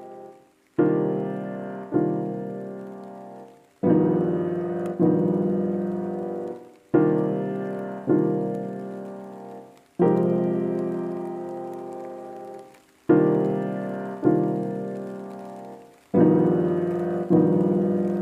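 Slow piano music: full chords struck one after another and left to ring and fade, mostly in pairs about a second apart, with brief silences between the pairs.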